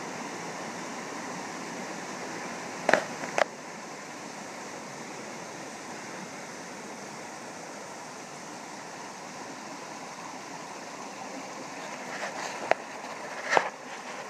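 Steady rush of flowing water from a rainforest stream. A few short sharp knocks cut through it, two about three seconds in and two near the end.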